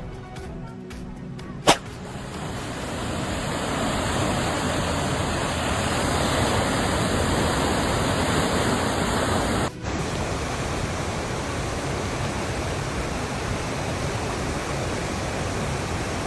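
Steady rushing noise of flowing floodwater, with no tone or rhythm in it. It drops out abruptly about ten seconds in and resumes a little quieter.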